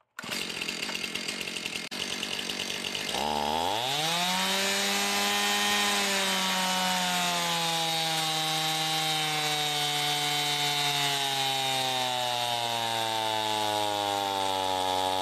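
Stihl MS 271 two-stroke 50cc chainsaw running on a dyno. About three seconds in, the throttle is opened and the revs climb quickly. The engine is then held wide open while the dyno loads it, and its pitch sinks slowly and steadily as the speed is pulled down in a power run.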